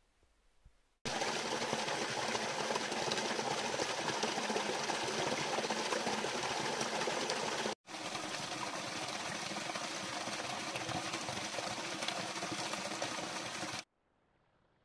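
Small spring-fed forest stream flowing and gurgling close up, a steady rush of water. It starts abruptly about a second in, breaks off for a moment just before the middle, and cuts off sharply near the end.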